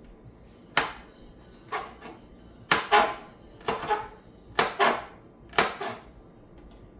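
A kitchen knife chopping vegetables on a cutting board: sharp knocks about once a second, some coming in quick pairs.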